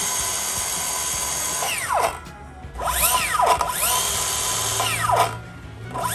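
Bosch GKS18V-68CG brushless cordless circular saw running free, its whine stopping quickly about 2 s in. It spins up again, runs steadily, and winds down within a fraction of a second about 5 s in, consistent with the saw's electric fast brake. It starts spinning up again near the end.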